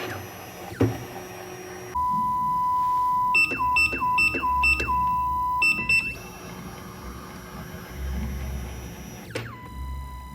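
Electronic beeping from a key cutting machine: a steady single-pitch tone starts about two seconds in, broken by a quick run of short higher beeps, stops about six seconds in, and starts again near the end.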